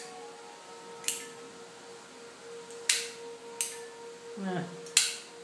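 Star Zippo-style lighter's hinged metal lid clicking open and shut: four sharp metallic clicks spread over a few seconds.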